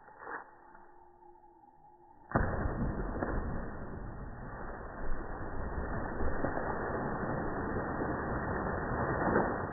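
A Vizsla plunging into a swimming pool: a sudden loud splash a little over two seconds in, then continuous rushing and churning of water.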